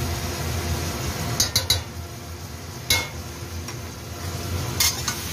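A metal utensil clicks against a steel wok: three quick clicks about a second and a half in, one near three seconds and another near five seconds. A steady low hum runs underneath.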